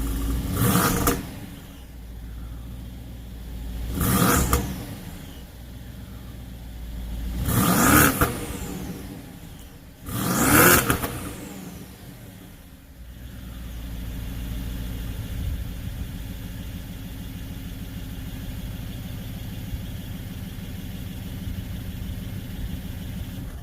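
BMW 550i's twin-turbo V8 exhaust through catless downpipes, revved four times in short blips, then settling back to a steady idle.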